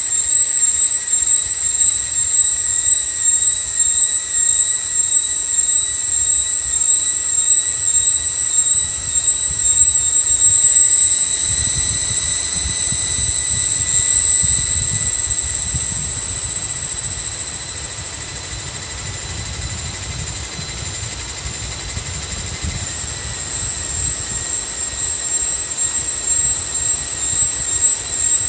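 Cicadas droning in tropical forest: a shrill, continuous high buzz with a fast pulsing shimmer on top. It swells louder around the middle and then eases back, over a low rumble.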